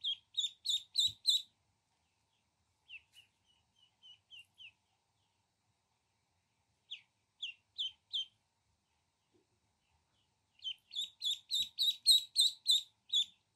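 Ducklings peeping: runs of short, high, downward-sliding peeps, about four a second, broken by pauses. The last run, near the end, is the loudest and longest.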